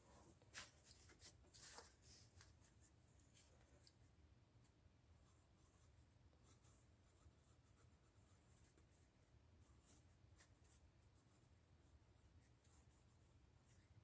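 Very faint scratching of a pencil on paper as a signature is written, in scattered short strokes; otherwise near silence.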